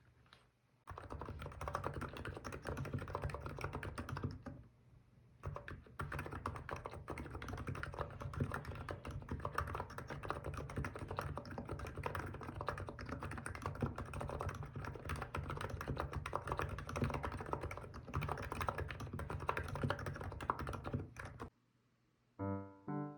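Hansung GK868B TICO electro-capacitive (Topre-style) keyboard with 35 g switches being typed on quickly, a dense run of keystrokes with a short break about four seconds in. The typing stops shortly before the end.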